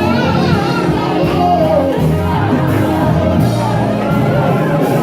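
Church praise music: steady held chords with voices singing and shouting over them.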